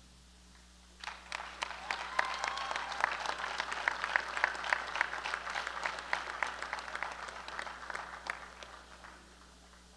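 Audience applauding in a gymnasium. The clapping starts about a second in, builds, then thins out and dies away near the end.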